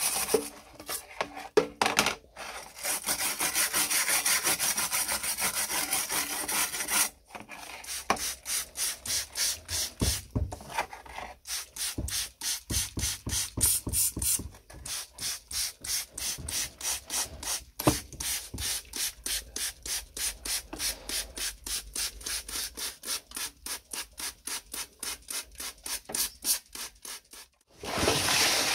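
A hand brush scrubbing back and forth over a wet, rusty metal plate in quick strokes, then an abrasive pad rubbed over rusted metal in steady, even strokes at about two or three a second.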